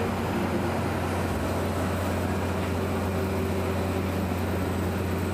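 Steady low drone of running machinery, with a constant hum and an even noise over it.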